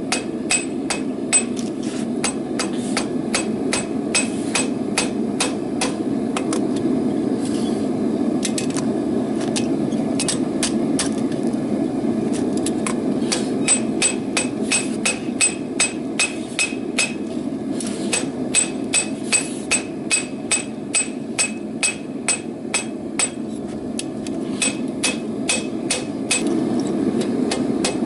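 Hand hammer striking hot rebar on an anvil in runs of quick, ringing blows, about two to three a second, with short pauses between runs.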